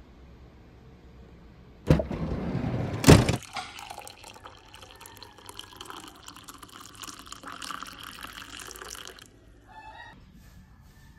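Brewed coffee pouring from a coffee maker's carafe into a glass mug, a steady splashing fill that stops about nine seconds in, followed by a few faint drips. Just before the pour, about two seconds in, there is a short loud rush ending in a sharp clack.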